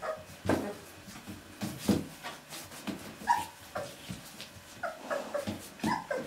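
Young Drentsche Patrijshond puppies, about two and a half weeks old, giving short high squeaks and whimpers while they toddle and tumble over each other. Several squeaks come close together near the end, and soft thumps are mixed in.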